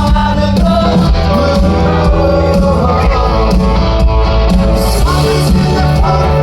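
Rock band playing live and loud, with electric guitar, bass and drums. The bass line moves to a new note about five seconds in.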